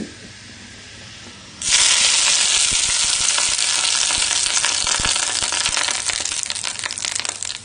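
Hot tempering oil with mustard seeds, dried red chillies and curry leaves poured onto wet coconut chutney: a sudden loud sizzle starts a little under two seconds in, crackling with small pops, and slowly dies down.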